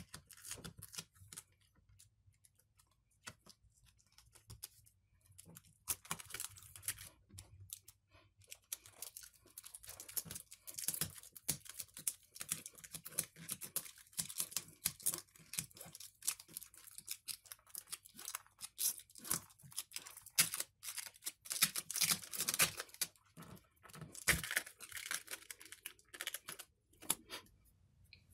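Double-sided adhesive tape crackling and tearing as a tablet's pouch battery is pried and peeled off the frame by hand. It comes as irregular crackles and clicks, sparse at first and much thicker from about five seconds in.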